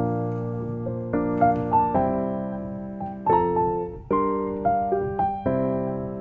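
Background music: a gentle piano melody with soft chords, each note struck and fading.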